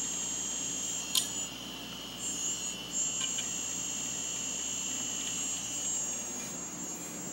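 Uncovered Maxtor 540 MB hard drive running, with a steady high-pitched whine over a low hum. A sharp click comes a little over a second in, and the whine drops out briefly before coming back about three seconds in.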